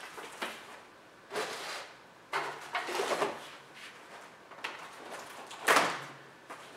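Cardboard packaging and plastic wrap being handled and shifted on a table: several separate bursts of rustling and scraping, the loudest near the end.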